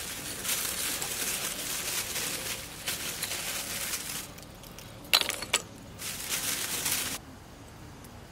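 Food sizzling on a mookata grill pan: a hissing, crackling sizzle in two stretches that start and stop abruptly, with a few sharp clicks between them about five seconds in.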